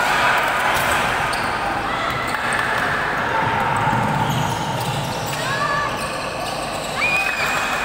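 Indoor basketball game: sneakers squeak on the hardwood court several times and the ball bounces, against a steady background of voices from players and the benches.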